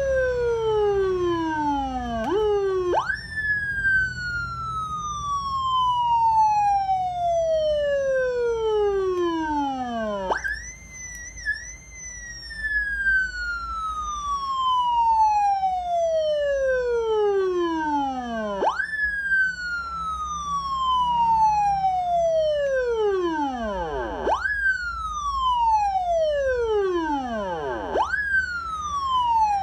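Police-style '113' electronic siren sounding a wail: a tone that jumps up sharply and then falls slowly over about seven seconds, repeated several times. Near the end the falls quicken to about three and a half seconds each.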